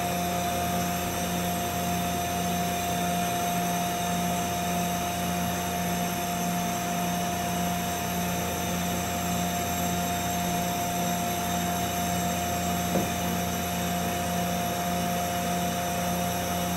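Mazak Integrex 300-IIIS CNC lathe powered up and idling: a steady machine hum with a constant mid-pitched whine and a low drone. A single light click about 13 seconds in.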